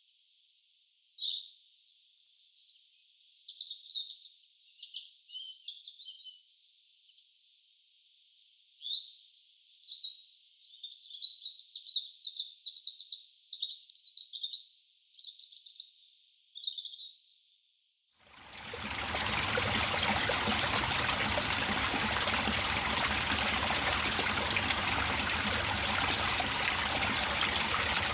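A songbird sings two bouts of quick, varied high-pitched song against a silent background. About two-thirds of the way through, the birdsong gives way to the steady rush of a flowing stream, which starts abruptly and runs on.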